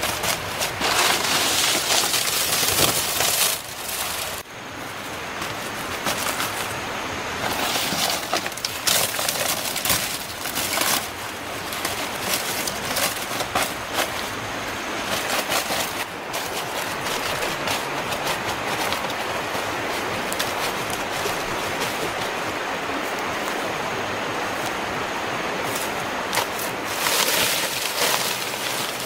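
Leaf thatch rustling and crackling as it is handled, with scattered short knocks, busiest near the start and again near the end.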